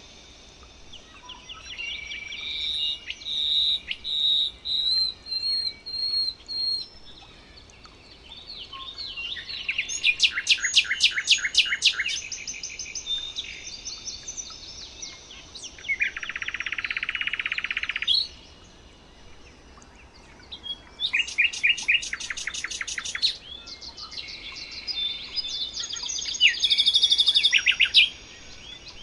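Several songbirds singing in turn: a run of short whistled notes, bursts of fast high trills, and a buzzy rattling phrase of about two seconds, over faint steady background noise.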